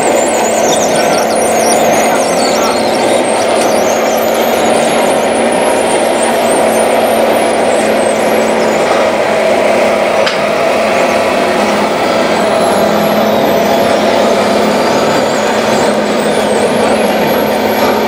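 Radio-controlled Komatsu bulldozer model driving through sand: a steady mechanical running noise with a low hum, and thin high squeaks in the first few seconds and again near the end.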